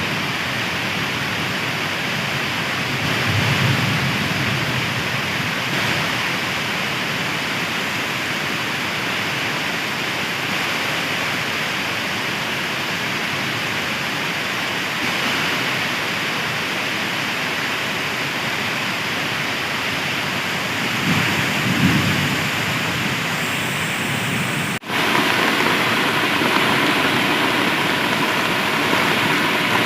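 Heavy rain pouring down in a steady, even hiss. Near the end it cuts out for an instant and comes back a little louder.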